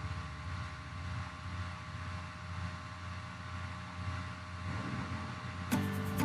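Low, steady background hum. Background music starts near the end.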